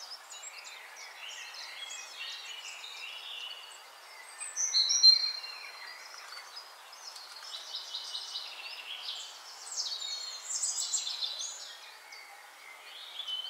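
Birds chirping and twittering over a steady background hiss, with one louder whistled call about five seconds in.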